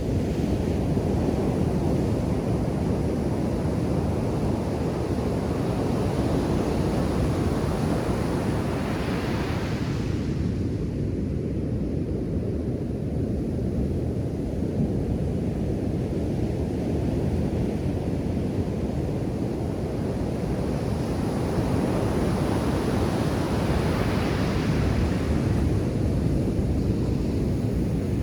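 Ocean surf on a sandy beach: a steady low rumble of breaking waves. Two waves wash up the shore with a brighter hiss, about a third of the way in and again around three-quarters through.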